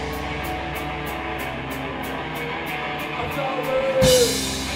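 Punk band playing live: electric guitar chords ringing over a steady, faint high ticking, a note bending downward shortly before a loud hit about four seconds in.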